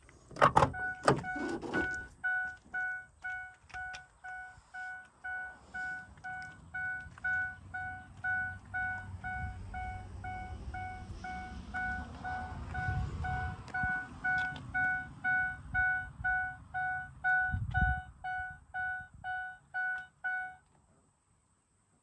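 Driver's door of a 2005 Ford E450 Super Duty bus unlatched and swung open, with a few clicks and knocks, followed by the cab's warning chime dinging about twice a second with the door open. The chime stops suddenly near the end.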